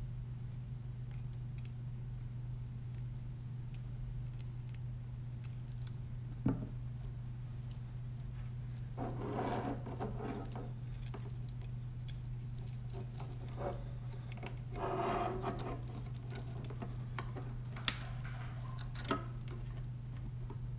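Small robot-kit parts being handled by hand: a carbon-fibre plate and servo cables rustle and knock against a plastic frame, with one knock about a third of the way in and a few sharp clicks near the end. A steady low hum sits underneath.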